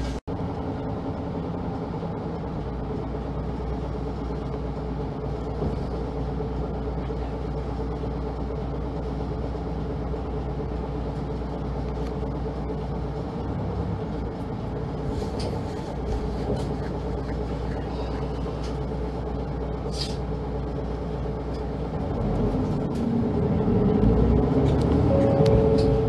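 Route bus engine heard from inside the passenger cabin, running steadily with a low hum and a few steady tones, then getting louder near the end.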